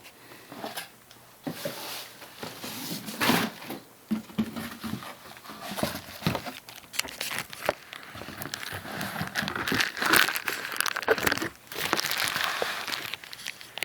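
Packaging crinkling, rustling and tearing as an RC monster truck is unpacked from its box by hand, in irregular bursts that get busier near the end.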